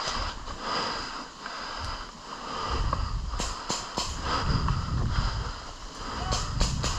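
Rustling and footsteps of a player moving through the field, with uneven low rumble and scattered sharp clicks.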